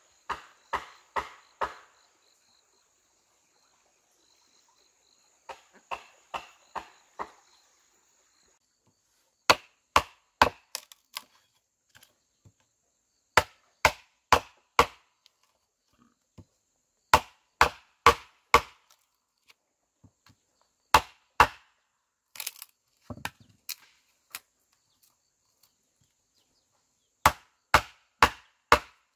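Chopping with a blade on wood: repeated bursts of four or five sharp blows, each burst a few seconds apart.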